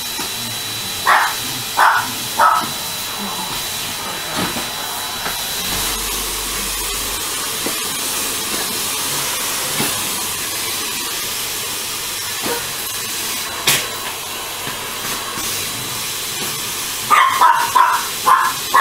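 Numatic Hetty cylinder vacuum cleaner running with a steady hiss and a faint high whine. A small dog barks at it: three sharp barks in the first few seconds and a quick run of barks near the end.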